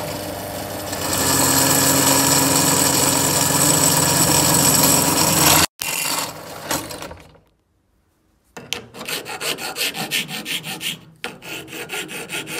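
Bench drill press running, its twist bit cutting into an aluminium angle bracket and getting louder as it bites. Then a hand file is stroked back and forth across the aluminium bracket's edge, about three strokes a second with a short pause.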